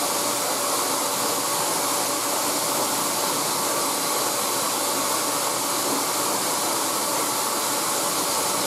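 Handheld blow dryer running steadily, a rushing blast of air with a faint steady motor whine, blow-drying a dog's damp coat after a bath.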